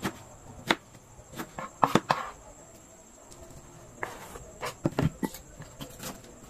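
Scattered sharp knocks and clicks of kitchen work during food preparation, coming singly or in quick pairs with a quieter stretch around the middle, over a faint steady high-pitched tone.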